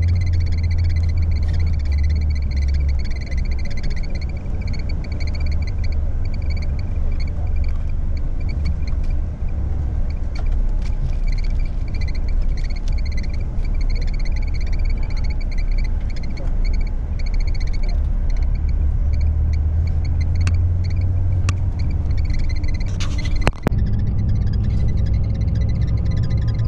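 Inside a moving coach bus at night: a steady low rumble of engine and road noise, with a faint high whine above it. A sharp click comes near the end, after which a few faint steady tones join the rumble.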